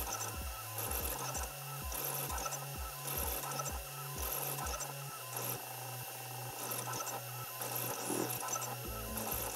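TwoTrees SK1 CoreXY 3D printer printing: its stepper motors hum in low tones that switch pitch several times a second as the print head darts back and forth.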